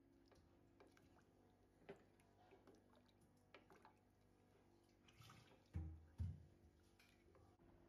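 Wooden spatula stirring thick curry in a pressure cooker pot: faint wet stirring and scraping with a few light clicks, and two dull knocks close together about six seconds in.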